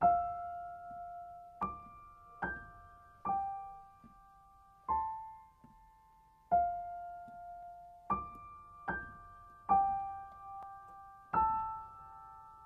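Background music: slow, gentle piano, single notes and small chords struck about once a second or so, each left to ring and fade.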